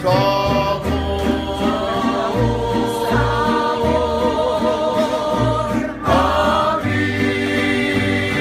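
Mariachi band singing: several voices sing a phrase together, wavering on long held notes, over strummed guitars and a plucked bass line. A new sung phrase starts about six seconds in.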